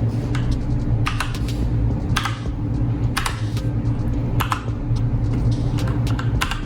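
Typing on a Keychron K2 mechanical keyboard with brown switches: irregular keystroke clicks, one or two a second, over a steady low hum.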